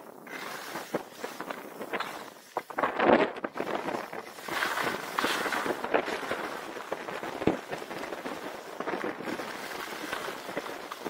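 Ski edges scraping and chattering over icy, hard-packed piste during a descent, in uneven rasps with the loudest scrape about three seconds in. The skis are being edged against ice that they barely grip.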